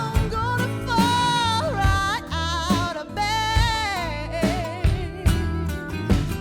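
A song: a sung melody with vibrato over heavy, sustained bass notes and regular drum hits.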